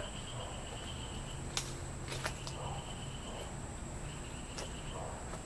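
Steady high-pitched trilling of crickets, with a few light clicks.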